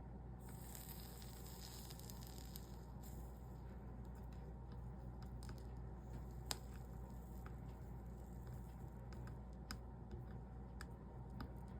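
Faint sizzle of a soldering iron melting 60/40 solder and flux along copper-foiled stained-glass seams, with scattered small ticks over a steady low hum.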